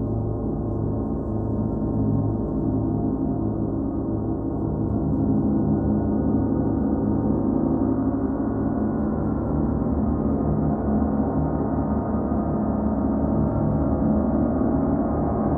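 38-inch Paiste Sound Creation Earth gong sounding continuously: a dense, steady stack of many overlapping tones that swells slightly and grows brighter about five seconds in.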